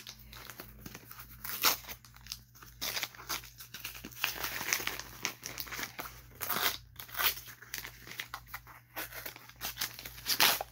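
A mailing package being torn open, its packaging crinkling and ripping in irregular bursts, with a couple of sharper tears.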